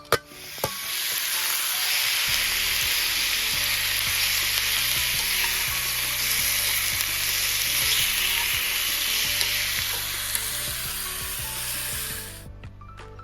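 Pork slices frying for ginger pork (shōgayaki), a loud steady sizzle that starts about half a second in and cuts off sharply near the end.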